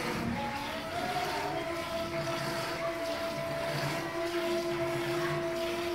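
Hand milking of a cow: thin streams of milk squirting into a plastic bucket, under a steady motor-like hum with two held tones.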